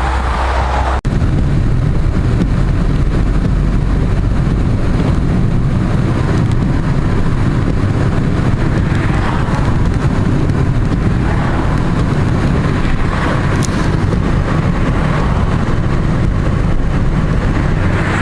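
Steady road and engine noise of a moving car heard from inside the cabin, a low rumble, with a brief drop about a second in.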